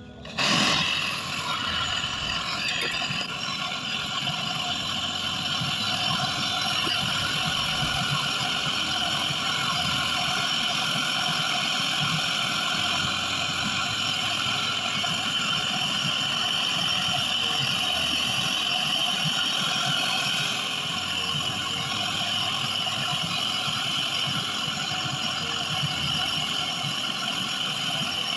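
Refrigeration vacuum pump running steadily while evacuating the freezer's new cooling and condenser lines, a constant mechanical hum with a hiss on top. It starts abruptly and cuts off abruptly.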